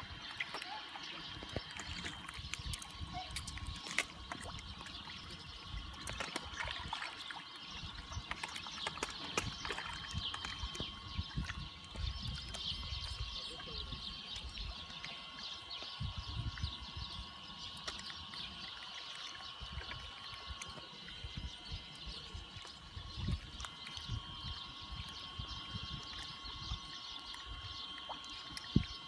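Fish splashing at the surface of a pond as they snatch bread dropped to them: many small irregular splashes over a faint steady high tone.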